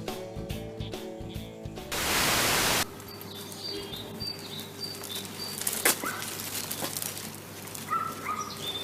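Music ends about two seconds in with a loud burst of static-like hiss lasting about a second. It is followed by a quieter background with faint, short bird chirps and a single sharp click.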